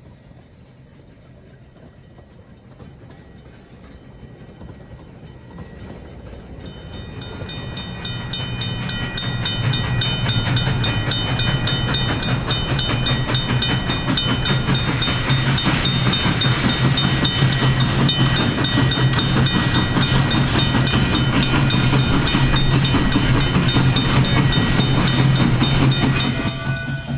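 Durango & Silverton K-28 steam locomotive No. 473, a 2-8-2 Mikado, running toward the listener. It grows steadily louder until about ten seconds in, then holds loud, with a steady low hum under rapid, even clatter.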